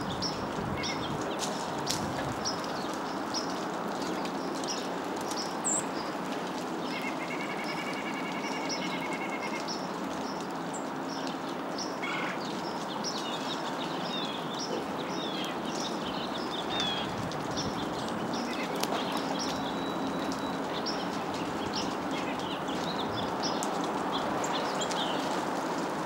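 Backyard songbirds chirping: many short, high chirps throughout, with one longer call of about two seconds some seven seconds in, over a steady background hiss.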